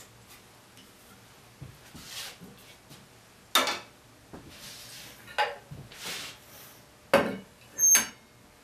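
Four sharp clinks and knocks of glass and metal, a second or two apart, with soft rustling between: a glue brush and a glass jar of hot hide glue being handled in a metal can of hot water. The last clink, near the end, rings briefly.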